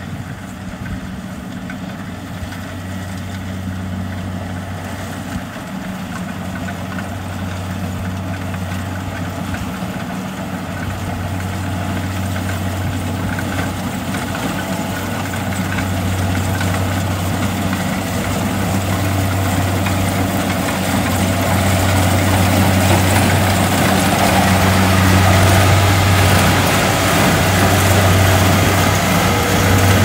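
Kubota DC70 Plus rice combine harvester running as it cuts through the crop: a steady diesel engine drone with machinery noise, growing steadily louder as it comes closer.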